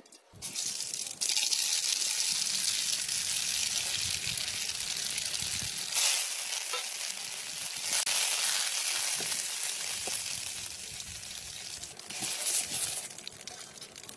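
Hot oil sizzling in a metal kadai as mustard seeds, curry leaves and dried red chillies fry for a tadka (tempering). The sizzle starts sharply about half a second in, flares again at about six and eight seconds, then dies down.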